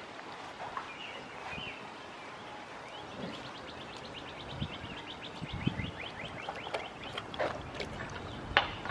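A songbird singing a fast trill of short repeated high notes, from about three seconds in until about six, over quiet outdoor background, with a few soft low thumps.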